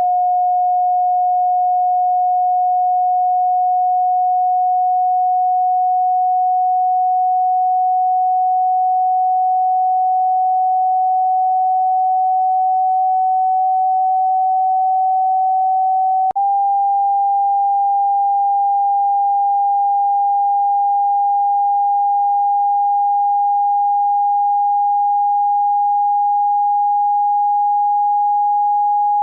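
Pure sine test tone from a hearing test: a single steady mid-pitched tone that creeps slowly upward in pitch. About sixteen seconds in there is a brief click as it steps up to a slightly higher tone.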